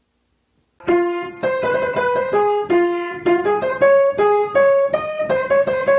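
Piano playing a quick melody of single notes, about three a second, starting a little under a second in after a moment of silence.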